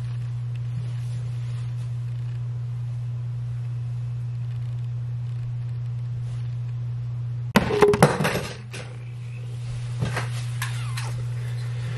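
A steady low hum, with about a second of loud knocking and rustling handling noise some seven and a half seconds in as the camera is moved.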